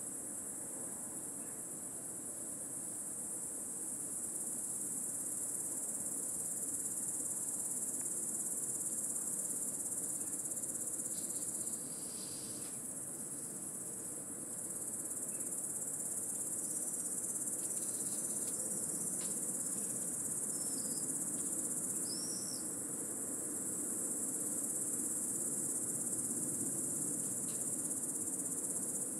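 An intense chorus of singing insects: a continuous, high-pitched drone that eases off briefly about twelve seconds in and then swells back.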